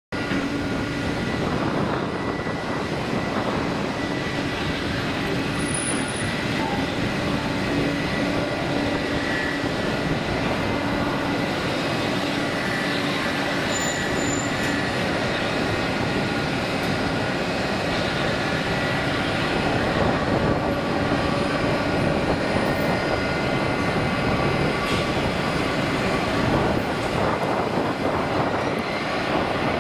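Airbus A320neo-family airliner's twin jet engines at takeoff thrust during the takeoff roll: a steady loud rush of engine noise with high whining tones, growing a little louder about two-thirds of the way in.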